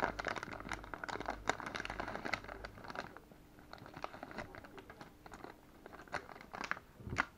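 Thin clear plastic packaging bag crinkling and crackling as small plastic kit parts are pulled out of it. It is busiest in the first three seconds, thins to scattered light crackles, and gives a short louder crinkle near the end.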